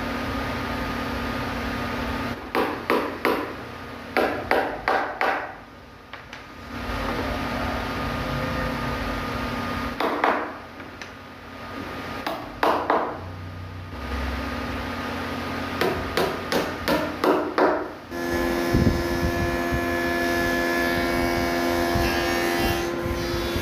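Hammer striking wood in quick runs of several blows, a few seconds apart, as a pale wooden strip is fixed along a wooden bed rail. A steady hum runs underneath, changing to a hum of several held tones about three-quarters of the way through.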